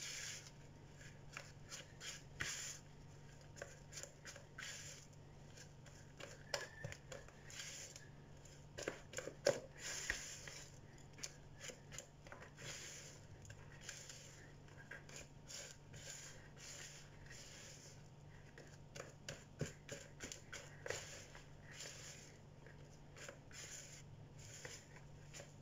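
Silicone spatula stirring and scraping a thick, sticky ground-peanut dough around a bowl, in short, irregular scratchy strokes about every second or two, over a faint steady hum.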